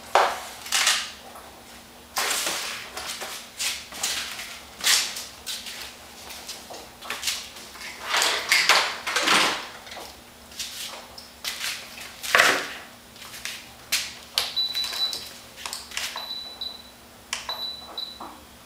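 Irregular knocks, clicks and clatter from handling things at a workbench, with a run of short high electronic beeps starting about fourteen seconds in.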